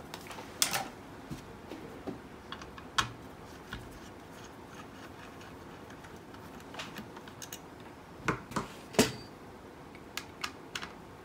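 Scattered light clicks and taps of a small screwdriver and screws being handled while screws are undone from a multimeter's circuit board, with a sharper click about nine seconds in.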